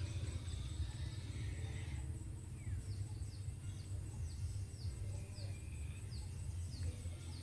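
A bird calling over and over in short, high, down-slurred notes, about two a second, starting a couple of seconds in, over a steady low rumble.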